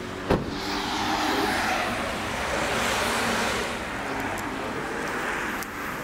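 A car door, the Hyundai i20's driver's door, slammed shut with a single sharp knock, followed by about five seconds of a steady rushing hiss.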